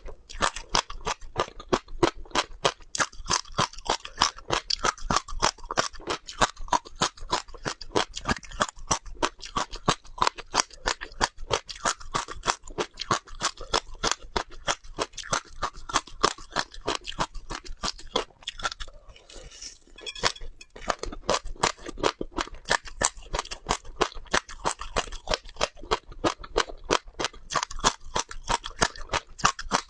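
Close-up chewing of crunchy seeds: a fast, steady run of sharp crunches, several a second, with a brief pause about two-thirds of the way through.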